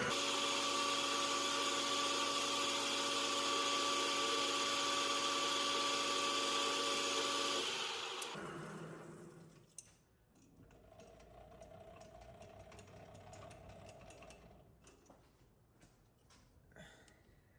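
Small metal lathe running steadily, then switched off about eight seconds in and spinning down to a stop over a couple of seconds; after that only faint clicks and handling sounds, with a faint steady hum for a few seconds.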